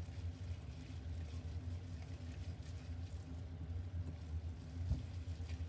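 Hands kneading salted ground chicken in a glass bowl, faint squishing of the meat over a steady low hum, with one soft knock just before the end.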